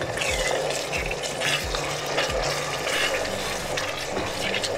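Steady rush of running water, as from a kitchen tap, over a low thumping beat of background music.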